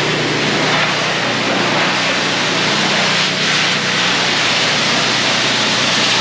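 Pressure washer spraying water in a steady hiss, with a motor's steady hum underneath.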